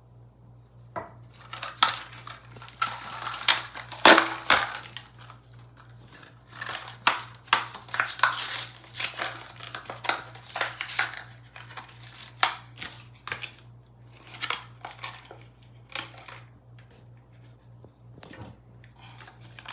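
Plastic packaging crinkling and rustling, with irregular small clicks and knocks, as new faucet replacement parts are unwrapped and handled.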